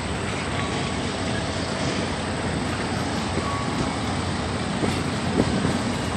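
Freight train of covered hopper cars rolling past on a bridge: a steady rumble and rattle of steel wheels on rail, with a few sharp clicks near the end.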